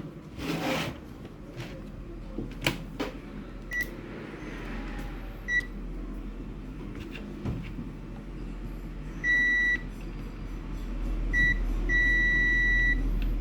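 Multimeter continuity buzzer beeping: a few short beeps, then two longer held beeps near the end, as the probes touch the legs of a switching transistor (12N60) that the repairer finds faulty. Sharp handling clicks of probes and board in the first few seconds.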